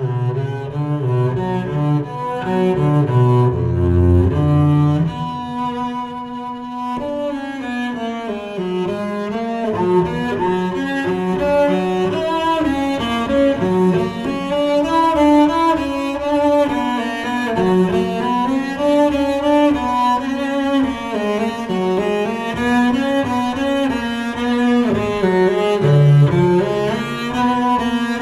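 Bowed double bass playing a classical melody, the notes sliding and wavering in pitch as they move through the instrument's middle and upper range.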